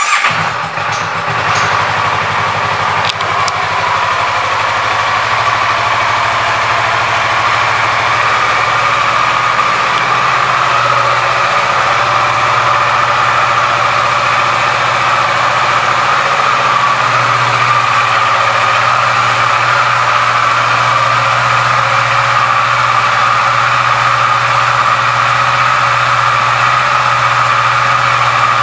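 2015 Kawasaki Versys 650's parallel-twin engine firing up on the starter and then idling steadily.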